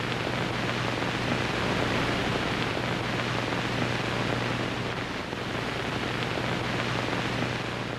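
Steady hiss of static, like untuned noise, with a low steady hum underneath.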